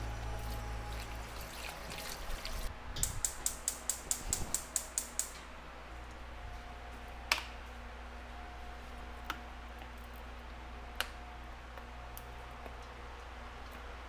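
Gas stove's spark igniter clicking, a rapid run of sharp ticks at about five a second for two and a half seconds, starting about three seconds in. A few single clicks follow, over a low steady hum.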